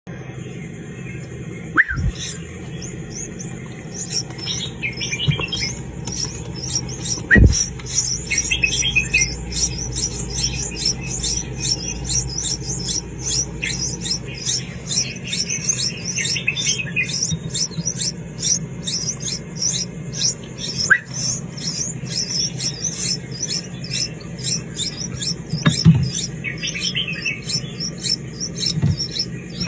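Hatchling birds begging with quick, repeated high chirps, many each second, over a steady low hum. A few sharp knocks break in, the loudest about a third of the way in and near the end.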